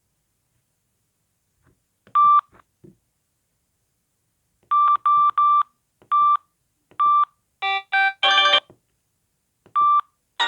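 Samsung SGH-X660 mobile phone's keypad beeping as its buttons are pressed: short, identical beeps, with a quick run of three about five seconds in and a brief cluster of beeps at several pitches around eight seconds, plus faint key clicks.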